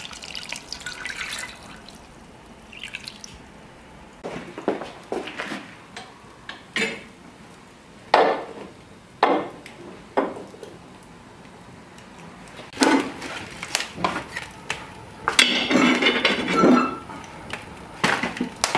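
Beef broth poured from a metal cup into a cast-iron pot, then a string of knocks and clanks as the iron pot is hung over the hearth fire and the burning logs are shifted with iron tongs, busiest near the end.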